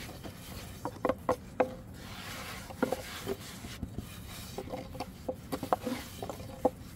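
Thin wooden rolling pin clacking and rubbing on a wooden board as flatbread dough is rolled out: irregular sharp wooden knocks, several with a brief ring, and a stretch of rubbing between them.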